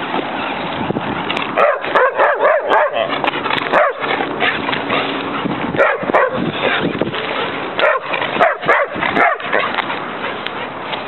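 Belgian Tervuren puppy yipping and barking in several short bouts while running on a leash, over a steady background of running steps and movement noise.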